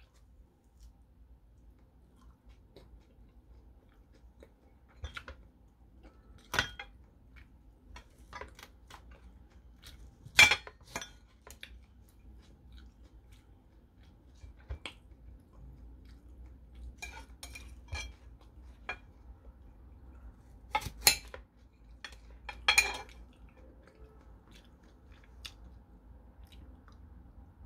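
Kitchen knife cutting tomatoes held in the hand, with scattered clicks and clinks of the knife against a ceramic plate. A few louder knocks stand out, one about ten seconds in and two more a little past twenty seconds.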